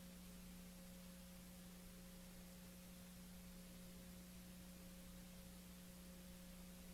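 Near silence: a steady low electrical hum with faint hiss, the recording's own noise floor.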